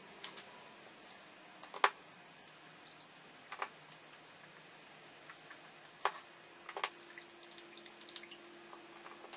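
Small plastic Lego pieces clicking and clattering as they are handled and put together by hand: scattered sharp clicks, the loudest about two seconds in and again around six to seven seconds.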